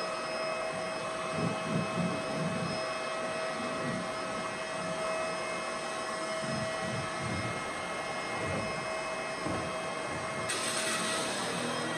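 Bagless upright vacuum cleaner running steadily over carpet: a motor whine over a rushing hiss, with uneven low swells as it is pushed back and forth. Near the end the sound turns brighter and hissier.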